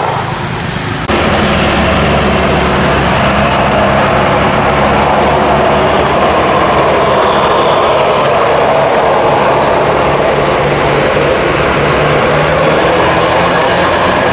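Tour bus passing close, its diesel engine running and its tyres on the road, loud and steady. It comes in suddenly about a second in.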